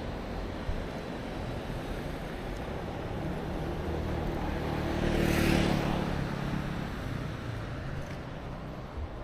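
A motor vehicle passes by, its engine sound growing and fading over a few seconds with a peak about midway, over a steady background rumble.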